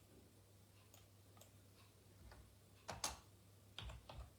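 Faint, scattered sharp clicks over a steady low hum, the loudest a quick pair about three seconds in, with a few more near the end.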